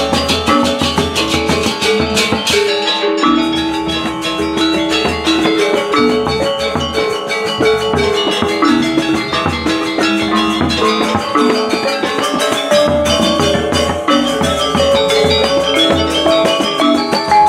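Balinese gamelan gong ensemble playing a lelambatan piece: bronze kettle gongs and metallophones ring in fast interlocking patterns over strokes of two-headed kendang drums.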